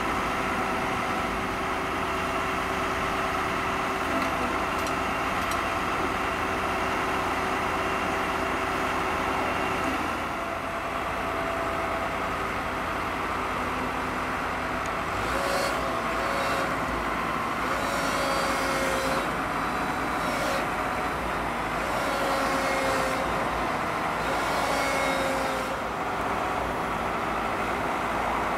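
Diesel engines of road-rail excavators running steadily. From about halfway on, short bursts of hiss come every second or so over the engine sound.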